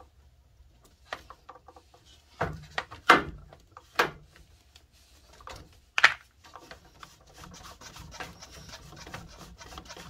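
Hard plastic clicks and knocks from a filter wrench loosening a water purifier's screw-on filter fitting, the loudest about three and six seconds in. Then a quick run of small ticks and rubbing as the plastic fittings and filter cartridges are handled.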